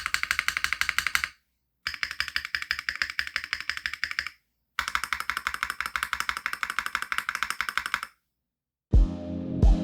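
Fast typing on a Womier RD75 Pro mechanical keyboard fitted with Womier full POM switches: rapid, even clacks in three stretches cut apart by brief silences. Music comes in near the end.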